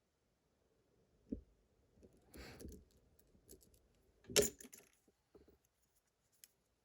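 Lock picks and tension tool being worked against a pin tumbler lock: faint metallic clicks, a short scrape about two and a half seconds in, and a sharper click a little after four seconds.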